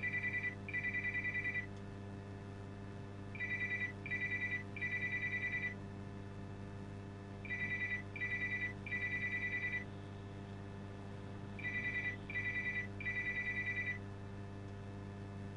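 Electronic trilling ring near 2 kHz, sounding in groups of two short rings and a longer one about every four seconds. A steady low hum runs underneath.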